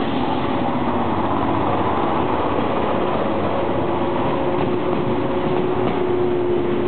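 JR 485-series converted electric multiple unit "Hana" departing along the platform, its cars running past with a steady electric train noise and a few held tones. Some faint clicks of wheels over rail joints come near the end.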